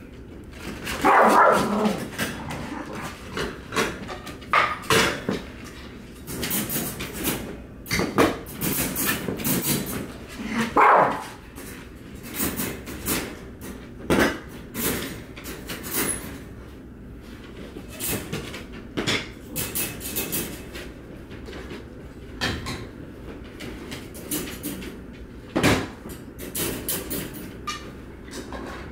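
Several crated dogs barking at feeding time, with two louder barks near the start and about eleven seconds in, over the repeated clatter of metal and plastic dog food bowls being handled.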